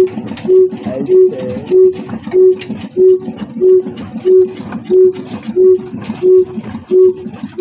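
Old slow-speed Ruston Hornsby diesel engine running with an even, ringing beat, about one and a half firings a second.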